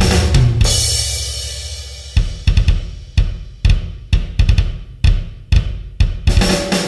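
Drum-led background music: the full beat drops out about half a second in, leaving a cymbal wash that fades, then single drum hits a couple of times a second until the full beat comes back near the end.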